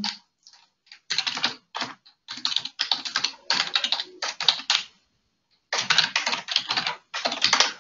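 Typing on a computer keyboard: quick runs of keystrokes, broken by a pause of about a second in the middle.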